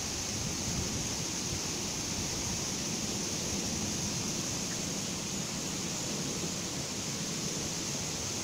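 Water rushing steadily at a dam, a continuous even hiss with a low rumble beneath.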